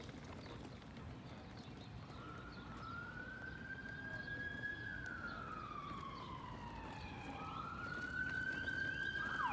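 Emergency vehicle siren wailing: it rises about two seconds in and holds, slides slowly down, then rises again and holds, getting louder toward the end.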